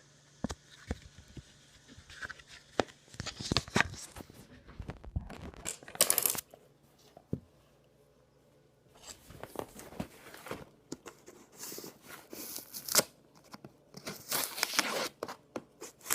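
A cardboard USPS medium flat rate box being cut and torn open with a kitchen knife: irregular bursts of tearing and scraping with sharp clicks, and a pause of about two seconds in the middle. The box is hard to get into.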